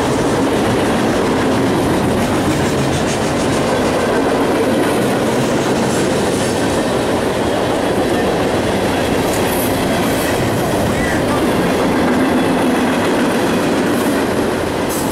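CSX freight train rolling past, its steel wheels clattering steadily over the rails.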